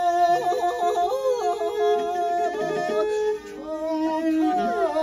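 A man singing a Mongolian long song (urtiin duu): long held notes with ornamented, yodel-like breaks and turns, over a sustained bowed accompaniment, most likely a morin khuur (horsehead fiddle). The sound dips briefly about three and a half seconds in.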